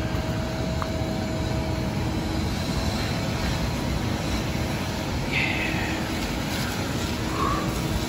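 Steady rushing outdoor background noise with a faint steady hum, and a brief high-pitched sound about five and a half seconds in.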